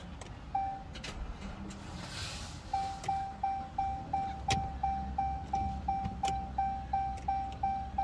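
A car's warning chime beeping at one steady pitch: a single beep near the start, then from a few seconds in a rapid run of about three beeps a second, over a low steady rumble. A few sharp clicks fall in between.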